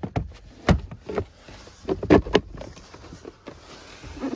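Plastic knocks and clicks of a 2019 Toyota RAV4 glove box being worked back into place in the dashboard: a handful of sharp taps spread irregularly, a couple of them close together about two seconds in.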